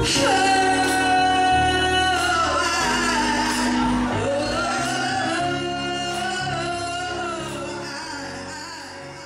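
A woman singing live, holding long wavering notes over a live band's chords, the music fading out toward the end as the song closes.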